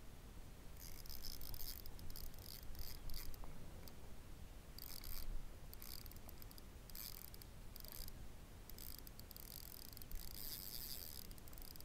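High-pitched insect chirping in repeated bursts of about a second, with short gaps between them, over a faint low rumble.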